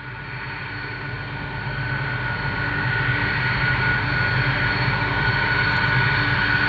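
Jet airliner engines running with a steady high whine over a rushing noise, fading in and growing louder over the first few seconds.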